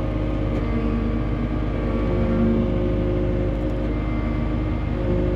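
Cat 289D3 compact track loader's diesel engine running steadily under the operator, with a steady whine over the low rumble; the tone shifts slightly about two seconds in as the machine is worked.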